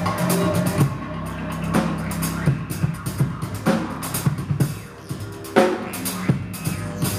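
Music with a drum kit playing scattered hits over held low bass notes.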